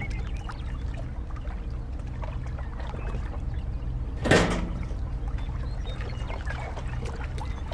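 A steady low engine drone, as of a small machine, with a brief loud rushing whoosh about four seconds in.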